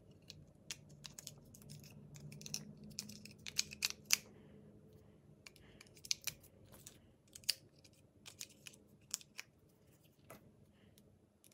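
Small irregular plastic clicks and taps of AAA batteries being fitted into the battery compartment of a plastic LEGO Super Mario interactive figure, with a cluster of louder clicks about four seconds in.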